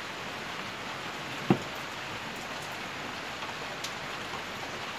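Steady rain hiss, with one sharp click about one and a half seconds in.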